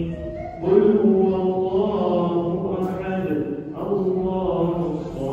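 A man's voice chanting a devotional naat in long, wavering held notes: two phrases, the second beginning about four seconds in.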